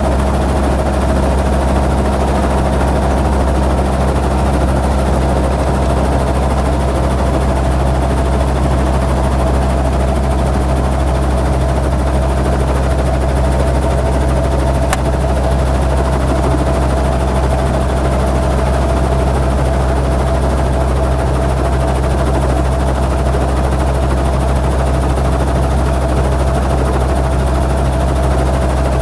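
Helicopter in flight: steady, loud engine and rotor drone with a deep pitched hum, and a single brief click about halfway through.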